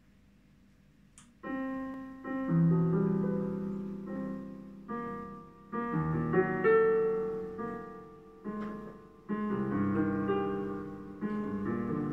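Digital piano playing a repeating arpeggio figure in broken chords, with the notes struck in overlapping, decaying groups. It starts about a second and a half in, just after a faint click. The recording quality is degraded.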